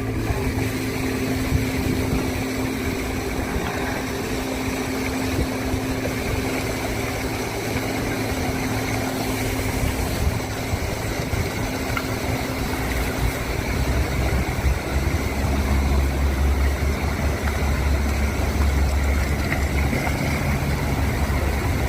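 Engine running steadily with a constant hum, typical of a fishing boat's motor, with a heavier low rumble coming in about two-thirds of the way through.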